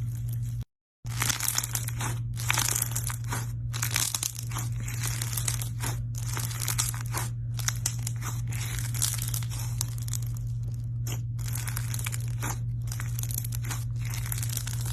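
Slime being stretched, pulled apart and squeezed by hand, giving dense crackling, tearing sounds over a steady low hum. The sound cuts out completely for a moment about a second in.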